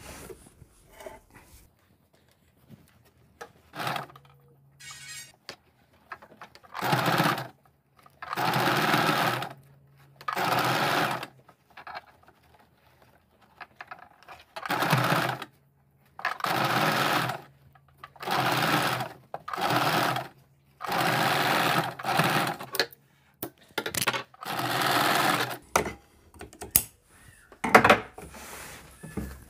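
Electric household sewing machine stitching lace trim onto a blouse neckline. It runs in about ten short bursts of a second or so each, stopping briefly between them, with a low hum in the pauses.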